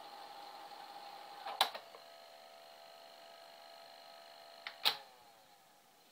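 Sony Betamax SL-F60 video recorder mechanism running in rewind: a steady motor whine with a loud mechanical click about a second and a half in, after which the whine carries on at a changed pitch. Near the end a double click switches the mechanism to stop, and the whine winds down and fades.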